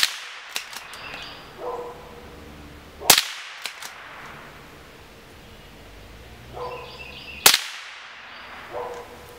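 Three shots from a Henry pump-action .22 LR rifle, sharp cracks about three and four and a half seconds apart. Between the shots come short metallic clicks and rattles from the pump action being worked.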